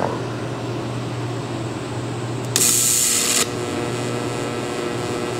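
TIG welding torch on a big-block Chevy roller camshaft: a steady hum, then a loud hiss lasting just under a second about two and a half seconds in as the arc is struck, then the arc's steady buzz. Weld is being laid on a lobe whose edge the lifter rolled over, to be reground afterwards.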